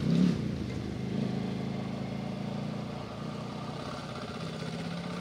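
Dirt bike engine running at low, steady revs as the bike rolls slowly down a dirt track toward the camera.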